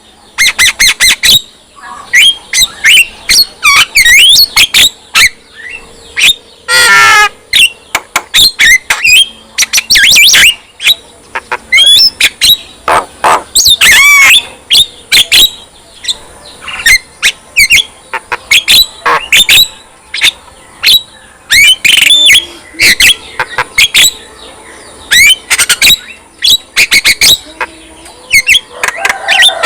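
Male Javan myna (jalak kebo) in vigorous, continuous song: a rapid, varied stream of sharp clicks, whistles that glide up and down, and a few harsh squawks, with short gaps between phrases.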